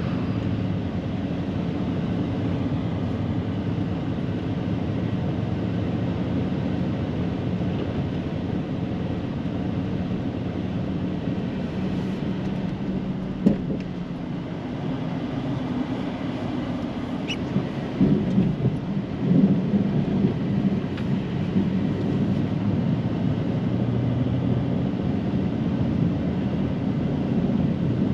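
Snow plow truck engine running steadily while plowing, a low drone with a sharp knock about thirteen seconds in and a rougher stretch of bumps and jolts around eighteen to twenty seconds in.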